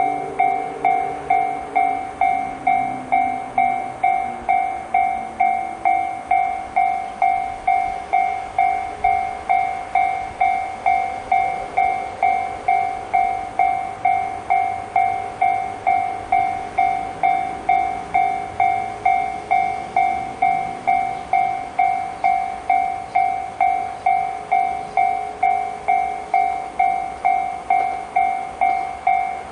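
Japanese railway level-crossing alarm sounding the JR standard electronic warning tone: a loud ding repeated evenly about twice a second, each strike with a higher ring above it.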